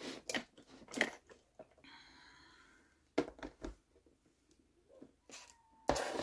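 Scattered small knocks and rustling of craft supplies being handled on a desk. Near the end comes a louder clatter as a stack of clear plastic storage boxes is lifted.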